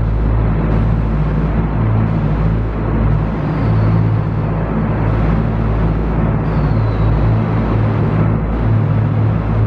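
Renfe Class 599 diesel multiple unit pulling out, its diesel engines running with a steady deep drone. A faint high whine slides slightly downward twice, a few seconds in and again past the middle.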